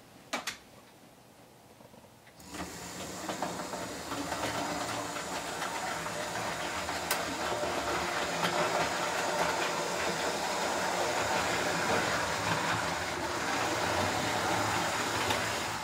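OO gauge model HST train running along elevated track: a steady whirring rumble of motor and wheels on rail that comes in about two and a half seconds in, after a couple of sharp clicks.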